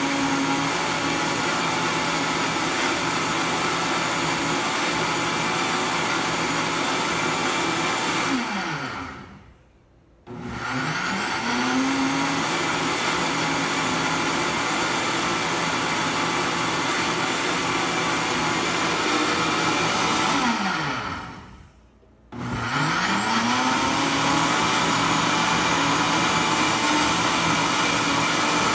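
Instant Pot Ace blender motor running its pulse-and-clean cycle on soapy water. It runs steadily, winds down to a brief stop twice, about nine and twenty-one seconds in, and spins back up each time with a rising whine.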